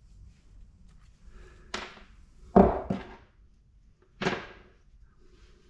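Small scrap metal pieces being handled and sorted by hand: three knocks, the second, about two and a half seconds in, the loudest and heaviest.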